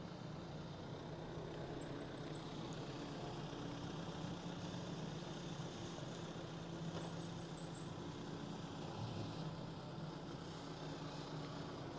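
Excavator engine running steadily with a low, even hum.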